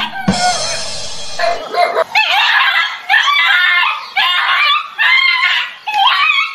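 A dog yelping and crying in a rapid string of high-pitched cries, with a rougher, noisier cry about a second long just after the start, as it struggles in fright under a stuffed toy tiger.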